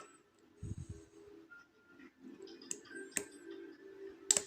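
Lock-picking tools clicking in a rim cylinder lock as it is picked: a few sharp clicks, the loudest near the end, over a faint steady hum.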